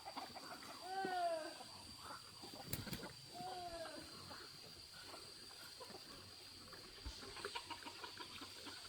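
Farm animal calls: two short cries that rise and fall in pitch, about two and a half seconds apart, followed by scattered quick clicking sounds, over a steady high-pitched whine.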